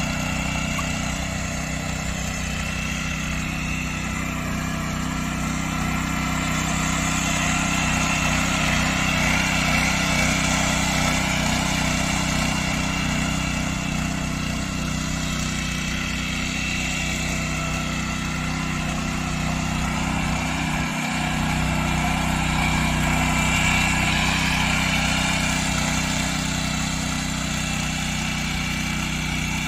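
Power weeder's small engine running steadily under load while its rotary tines till soil, with a brief dip in the low hum about two-thirds of the way through.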